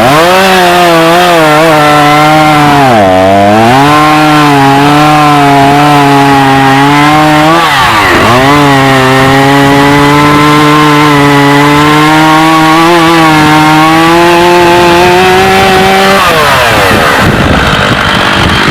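Stihl two-stroke chainsaw at full throttle cutting through wood. The engine pitch sags as it loads up in the cut, about three and eight seconds in, then winds down near the end as the throttle is let off.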